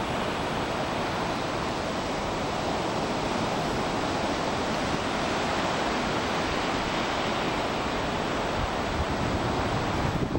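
Steady roar of ocean surf breaking along a sandy beach.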